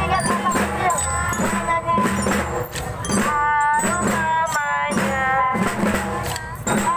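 Children's marching drum band beating drums in a steady rhythm, over music with a sung melody.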